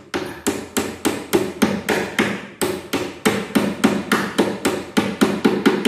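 Steel claw hammer rapidly driving a nail into plywood, a steady run of sharp blows at about three or four a second.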